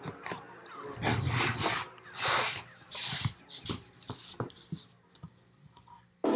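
Metal-tube furniture frame being handled and fitted together by hand during flat-pack assembly: rubbing and scraping with sharp clicks and knocks, densest in the first half, then fewer, fainter clicks. Music cuts in suddenly right at the end.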